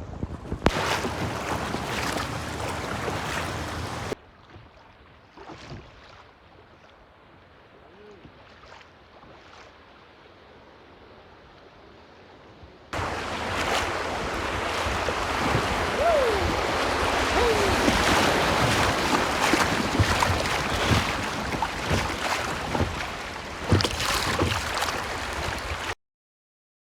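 Rushing high river water and wind buffeting the microphone as kayaks run the current. It is loud at first, drops to a quiet stretch after about four seconds, comes back loud about halfway through, and cuts to silence a second before the end.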